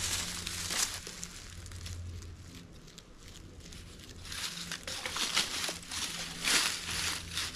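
Shovel digging into soil and leaf litter: irregular scraping, crunching strokes, loudest about a second in and again around six and a half seconds in, over a faint low hum.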